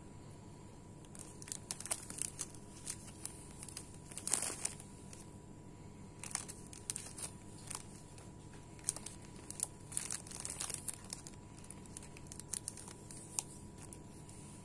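Clear cellophane bags and plastic ribbon crinkling in irregular crackles as they are handled and tied, loudest about four seconds in.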